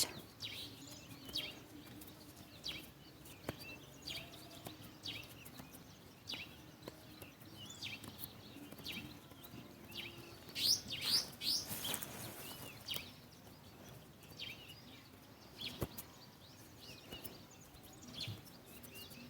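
Small birds chirping, short calls repeating every second or so, with a louder run of calls about eleven seconds in. A single sharp tap sounds near sixteen seconds.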